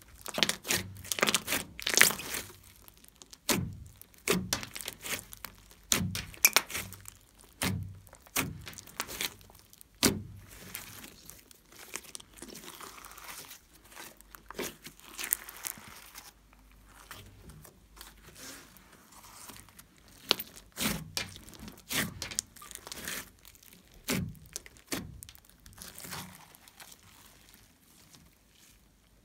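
A large foamy slime being squeezed and kneaded by hand, giving irregular sharp pops and sticky crackles as air pockets burst, with softer squishing in between.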